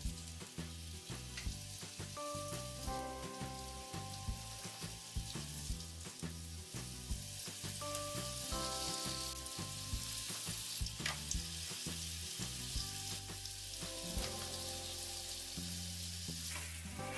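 Flour-dredged mackerel pieces sizzling steadily as they fry in hot oil in a pan, with a few sharp clicks of the tongs against the pan.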